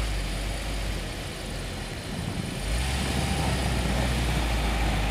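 UAZ Patriot's engine running under load as the SUV sits bogged in deep snow trying to drive out. The revs ease off about two seconds in and pick up again a moment later.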